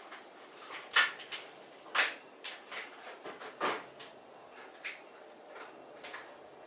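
A few scattered short clicks and knocks, roughly one a second, with only a low hiss between them.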